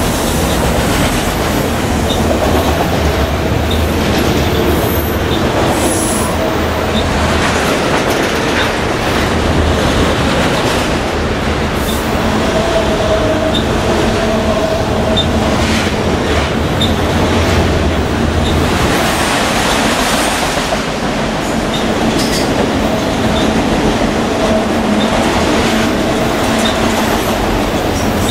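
A freight train of autorack cars passing close by: a steady rumble and rattle of steel wheels on the rails, with a faint wheel squeal that comes and goes.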